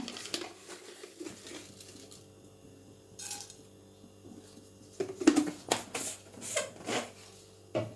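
A spoon or spatula stirring whole spices dry-roasting in a pan: scattered light clinks, then a run of sharper scrapes and knocks against the pan in the second half.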